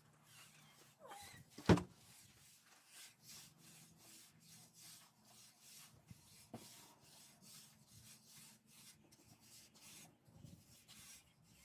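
Crushed-stone paver base crunching and scraping under steady hand work, in repeated strokes about two a second. There is a single sharp knock a little under two seconds in.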